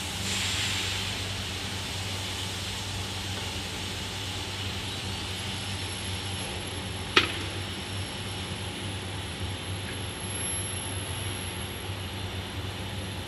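Induction-heating elbow hot forming machine running: a steady hum and hiss with a faint high whine. There is a louder burst of hiss at the start, and a single sharp click about seven seconds in.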